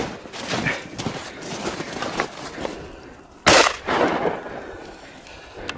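Footsteps crunching in snow, then about three and a half seconds in a single loud shotgun shot that rings on for about a second. A short sharp click follows near the end.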